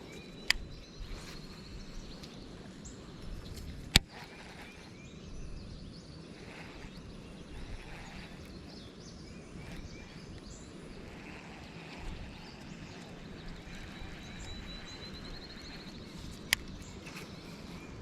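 Riverside ambience: wind rumbling on the microphone while small birds chirp, with two rising trills. Three sharp knocks or clicks stand out, at about half a second in, about four seconds in (the loudest), and near the end.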